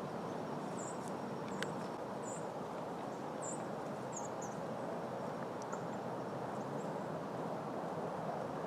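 Steady outdoor woodland hiss with a string of short, high-pitched chirps from a small bird over the first several seconds, and a single sharp click about a second and a half in.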